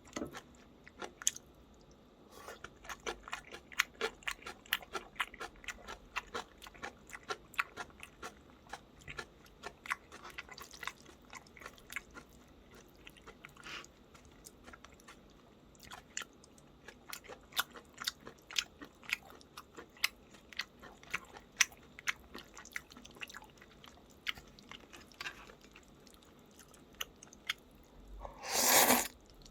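Close-miked chewing: a person eating, with many small crisp crunches and wet mouth clicks at an irregular pace. Near the end comes a louder rushing noise about a second long.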